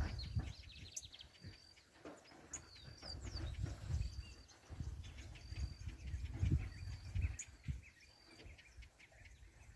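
Countryside ambience: a short, high, even-pitched chirp repeats every second or so, over uneven low rumbling.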